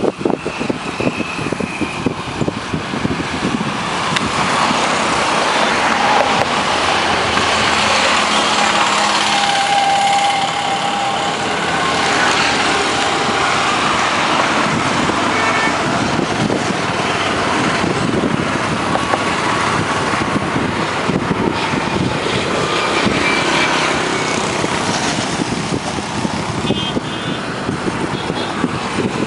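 Road traffic going by on a bridge: a continuous rush of engine and tyre noise from passing vehicles that swells in the middle and eases near the end, with a few short high tones near the end.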